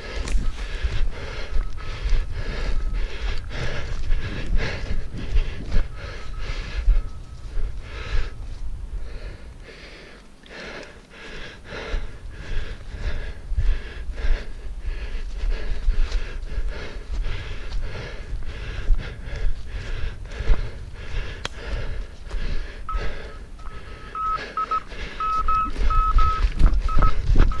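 A runner's steady footfalls and panting breath, with the radio direction-finding receiver's tone beeping on and off in short keyed dashes. The beeps grow stronger near the end.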